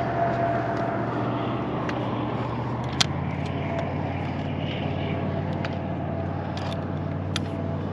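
An engine running steadily with a low hum, with a few sharp clicks on top, the loudest about three seconds in.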